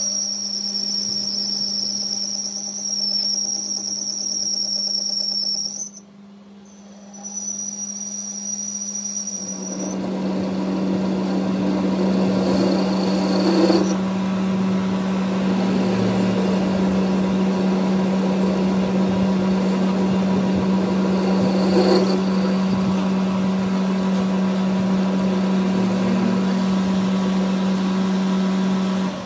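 Metal lathe running under cut, its motor giving a steady hum while the tool cuts the spinning steel workpiece. A high steady whine sounds over it for about the first six seconds, then after a brief dip the cutting noise comes in thicker and louder, with a few sharp ticks.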